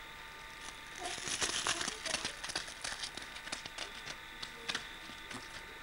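A burst of crackling and crinkling starting about a second in and lasting about two seconds, then thinning to scattered clicks, over a faint steady hum.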